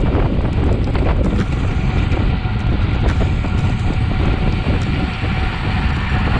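Wind rushing over the microphone of a road bike's handlebar-mounted camera at racing speed: a loud, steady rumble.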